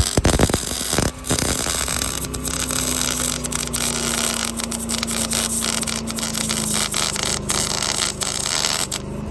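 Electric welding arc crackling and sizzling steadily while an overhead bead is run, stopping abruptly just before the end.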